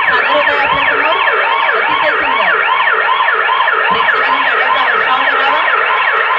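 Recorded emergency-vehicle siren sound effect in a fast yelp, each sweep rising and falling in pitch, about two a second.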